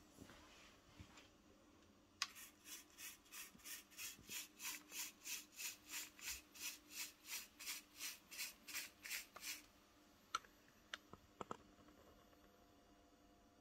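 LEGO Technic air valve with motor-driven gears pinching an aquarium tube, working in a steady rhythm: about three and a half short pulses a second for some seven seconds, then stopping suddenly. A few sharp clicks follow.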